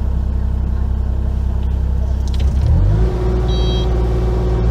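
Excavator diesel engine running, its pitch and load rising about two and a half seconds in and then holding steady. A short high-pitched beep sounds near the end.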